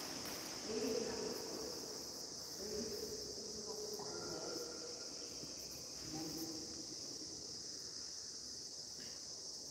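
Steady high-pitched buzzing drone. A few faint, held low tones come and go beneath it.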